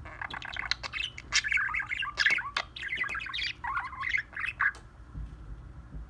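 Budgerigar warbling: a fast, chattering string of chirps, clicks and squawky notes that stops about four and a half seconds in.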